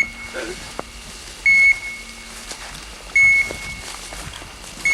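Hunting dog's beeper collar in point mode: a short, high electronic beep repeating about every second and a half to two seconds, three times, signalling that the dog is holding on point.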